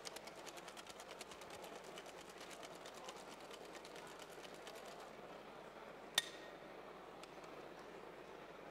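Cocktail shaker with ice being shaken hard: a fast, even rattle of ice against the tin that stops about five seconds in. About a second later comes a single sharp clink that rings briefly, then a fainter click.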